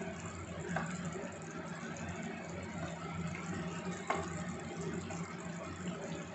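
Fish curry sizzling and bubbling in a frying pan: a steady hiss, with two light clicks, one about a second in and one about four seconds in.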